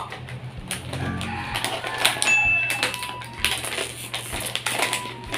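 A crinkly plastic snack bag of Nova chips is being handled and cut open with scissors: dense, irregular crackling and crinkling, with snips of the blades.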